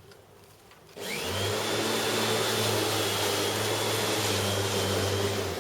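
Bosch Rotak 34 corded electric rotary lawnmower switched on about a second in: its motor whine rises quickly and settles into a steady running hum, easing off right at the end.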